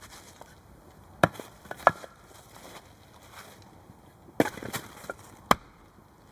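Wood being chopped: four sharp strikes at irregular intervals.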